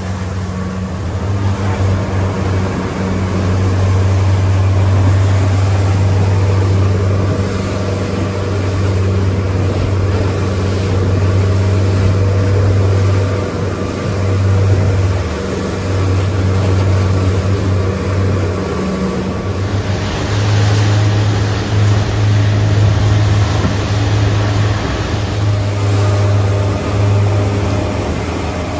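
Twin Yamaha 200 outboard motors running at cruising speed as a steady low drone, under the rush of water and spray from the hull and wake in rough chop.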